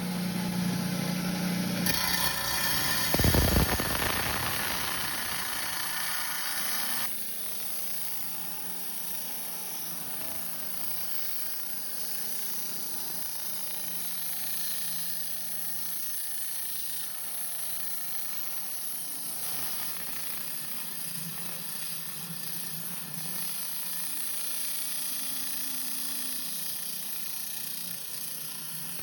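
Rock saw's diamond blade cutting through a tuxedo lace agate with a steady hissing grind. It is louder for the first seven seconds, with a low hum at the start and a knock about three seconds in.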